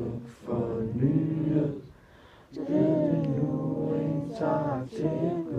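Group of voices singing a Danish evening song unaccompanied, in long held notes, with a short break about two seconds in.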